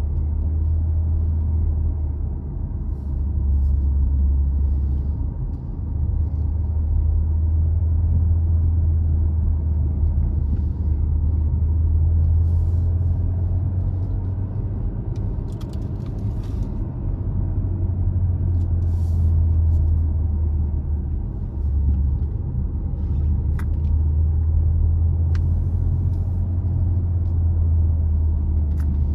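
Car driving: a steady low rumble of engine and road noise, with a few faint clicks in the second half.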